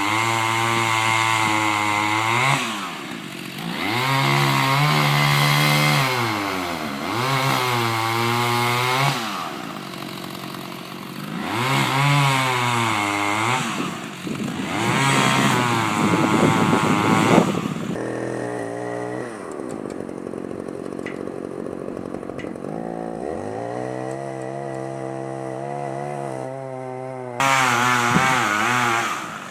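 Stihl two-stroke chainsaw cutting into the trunk of a dead ash tree for felling, the engine revving and dropping in pitch again and again as the chain loads in the cut. About two-thirds of the way through it settles to a lower, steadier note for several seconds, then revs up again.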